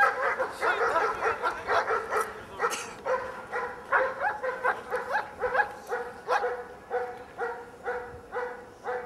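Large black dog barking over and over in a steady rhythm, about two to three barks a second, while held back by its harness.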